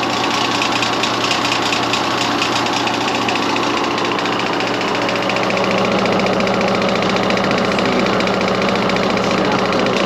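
York condenser fan motor running with a steady hum and a fast rattle over it. The noise is blamed by the homeowner on the motor's bearing going out, and the shaft has some up-and-down play.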